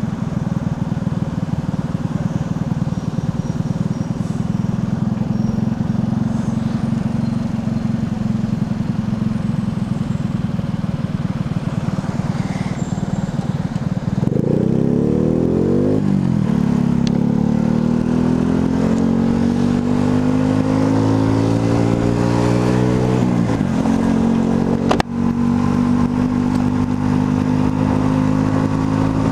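Motorcycle engine running steadily while riding, then revving up about halfway through: two rising climbs in pitch, each broken off by a gear change, before it settles to a steady cruise. A single sharp click near the end.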